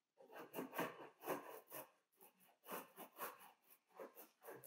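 Brayer rolling printing ink out across a tile in repeated back-and-forth strokes, about two a second with a short pause near the middle, spreading the ink into an even layer.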